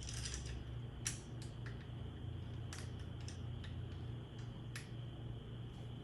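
Light metallic clicks and taps of hand tools and bolts while handlebar clamp bolts are lined up and threaded in, about six separate clicks spread irregularly over a few seconds, over a steady low hum.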